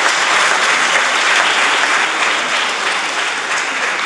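A large audience applauding steadily, the clapping just beginning to thin out near the end.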